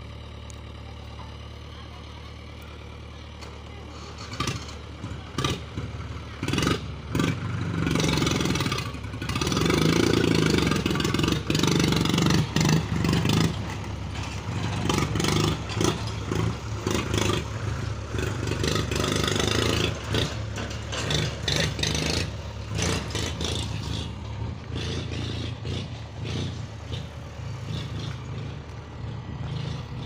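Mahindra tractor's diesel engine idling, then from about four seconds in revving up and running hard with loud clattering as it strains against an overloaded trolley of soil.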